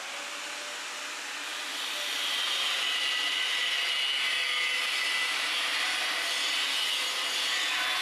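Handheld angle grinder cutting through a steel pipe, a steady high whine with a hiss, growing louder about two seconds in as the disc bites.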